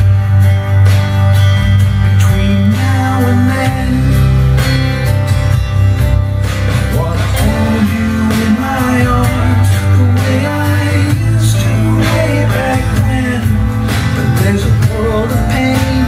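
A country-style song with guitar playing continuously over a steady bass line, as music played back through a home theatre receiver and speakers for a sound test.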